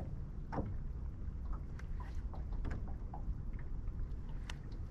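Steady low rumble of wind and small waves slapping against a bass boat's hull, with a handful of light clicks and ticks scattered through, the sharpest near the end.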